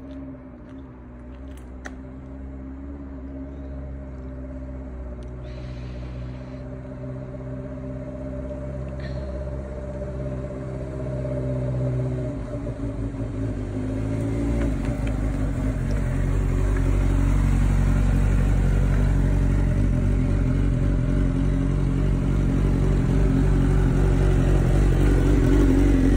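Street motorcycle engine approaching and growing steadily louder, its note shifting about halfway through, then running steadily and loud close by.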